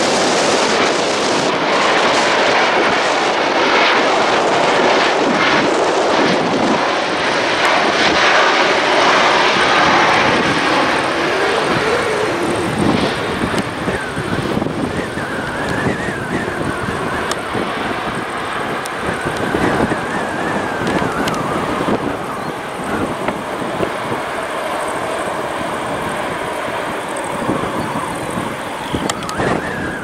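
Airbus A320-family jet's CFM56 engines running loud on the runway during the landing roll, then easing off to a lower rumble with a steady high whine as the airliner slows. Some wind buffeting on the microphone.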